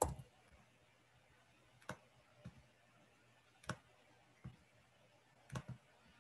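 About six faint, sharp clicks at irregular intervals, the loudest right at the start, from a computer mouse being clicked.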